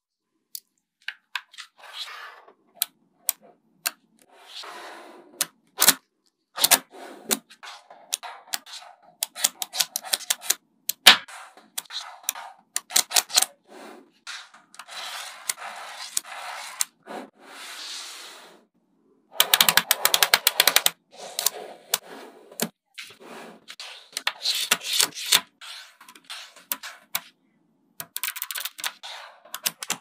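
Small magnetic balls clicking as they snap together one after another, with stretches of rattling clatter as rows of balls are slid and pressed into place. About two-thirds of the way through there is a dense run of rapid clicks.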